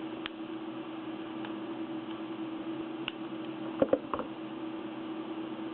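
Small metal clicks from handling a pin-tumbler lock cylinder and its tools: a couple of light ticks, then a quick cluster of three or four sharper clicks about four seconds in, over a steady hum.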